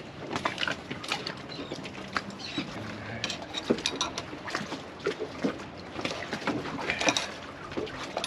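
Scattered small clicks and taps of hands and a hand tool working on a yacht's stainless forestay rigging fittings, coming irregularly throughout.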